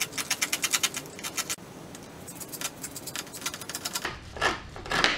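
Scissors snipping through the bristles of small toy hand brushes: a quick run of sharp clicks and snaps for the first second and a half, then scattered snips, with a few louder cuts near the end.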